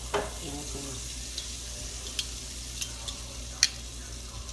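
Seasoned chuck roast searing in hot oil and butter in a skillet: a steady sizzle with a few sharp pops, the loudest about three and a half seconds in.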